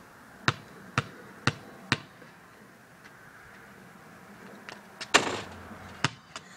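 Basketball dribbled four times on pavement, a sharp bounce about every half second. Near the end comes a short noisy burst, then a couple more lighter bounces.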